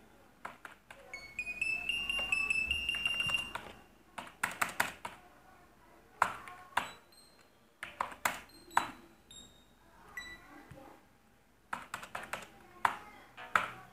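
Computer keyboard typing: short runs of sharp key clicks, several a second, with pauses between runs. Near the start a high whistling tone climbs in small steps and holds for about two and a half seconds.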